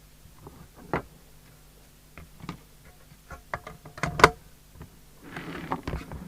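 Small metal parts being handled on a workbench, such as the screws and case of a CB radio: a scattered series of light clicks and taps, one louder knock just after four seconds in, and a short scraping rustle about five seconds in.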